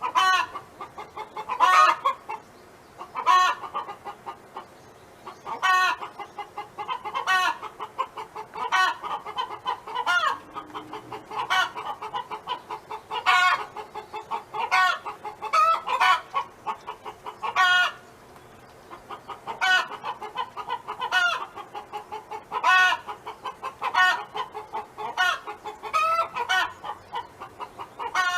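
A domestic hen cackling over and over: runs of quick, short clucks, each ending in a loud drawn-out call, about every one and a half seconds.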